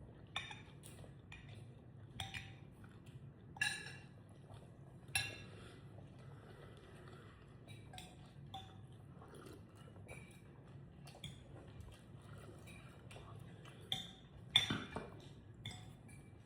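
Cutlery clinking and scraping against plates during a meal, in sharp irregular taps, the loudest about fifteen seconds in.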